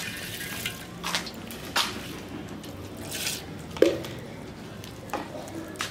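Mustard seeds spluttering in hot sesame oil in an iron kadai: scattered irregular pops and crackles, the loudest about four seconds in.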